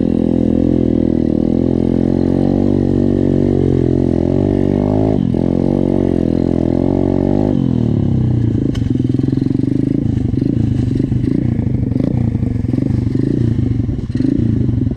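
SSR 125 pit bike's single-cylinder four-stroke engine running under throttle at steady revs, with a brief dip about five seconds in. About halfway through the revs drop and it runs on at low revs with a rougher, pulsing note.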